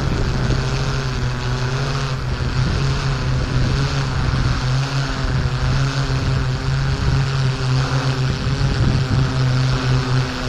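Off-road vehicle engine running at a steady pitch, with rumbling road and wind noise over it.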